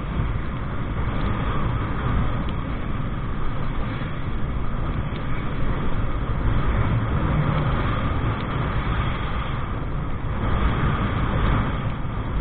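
Steady rush of wind and road noise, mixed with the engine of a motorcycle being ridden along a road at speed.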